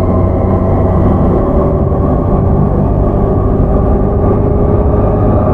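The running sound of a JR East E231-0 series electric commuter train (motor car MoHa E231-110, Mitsubishi IGBT VVVF), heard from inside the car. It is moving at a steady speed: a continuous rumble of wheels on track under a steady hum, with no change in pitch.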